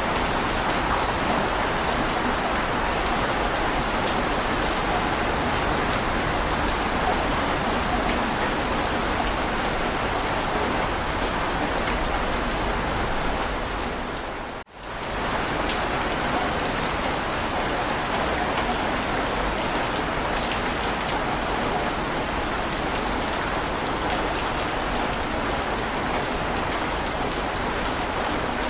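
Heavy rain falling in a steady hiss with faint drop ticks, briefly fading out to near silence and back in about halfway through.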